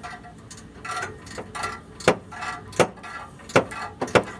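Hand tools knocking and clanking on the exhaust hardware under the car: four sharp metallic knocks, roughly a second apart, among lighter handling clicks.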